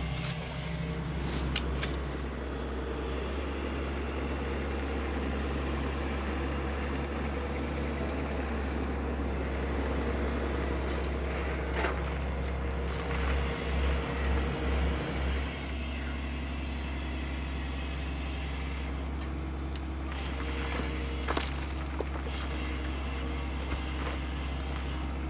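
Caterpillar 320 hydraulic excavator's diesel engine running steadily under load while it scoops and dumps backfill, with a few sharp knocks from the work. The engine note swells a few times about midway through.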